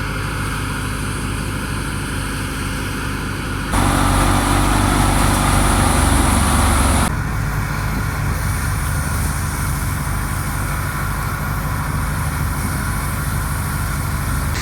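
A tractor-driven wheat thresher running steadily, with a low, even engine note. From about four to seven seconds in it is louder and rougher, starting and stopping abruptly.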